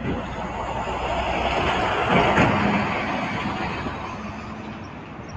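Jet airliner passing, its engine rush swelling to a peak about two seconds in and then slowly fading.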